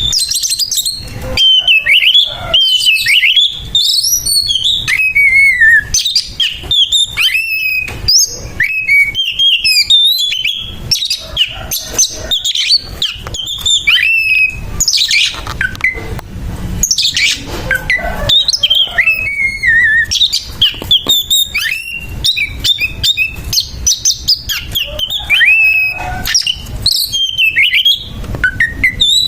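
Oriental magpie-robin (kacer) singing a loud, harsh fighting song: a rapid, unbroken run of varied whistles, sharp chips and rasping notes that jump and slide in pitch. This is the aggressive territorial song that kacer keepers play to provoke other birds.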